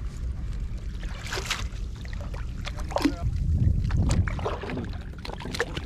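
Wind and water around a kayak at sea: a steady low rumble of wind on the microphone and lapping water, broken by a few short knocks and clatters as a fish and fishing gear are handled on the kayak.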